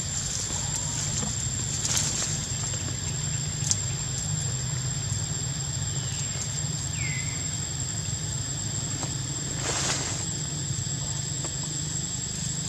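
Outdoor forest ambience: a steady low rumble and a constant thin high whine, with a few brief rustles, the longest about ten seconds in, and a short falling chirp about seven seconds in.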